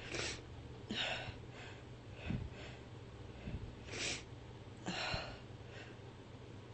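A woman's short, noisy breaths and sniffs, about five of them roughly a second apart, in the middle of a fit of repeated sneezing.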